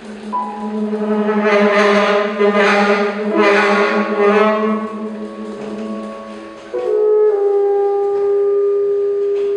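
Tenor saxophone and piano playing free, aleatoric contemporary music. Long held low notes swell to a brighter, harsher tone in the middle, then a new set of steady held notes comes in louder about seven seconds in.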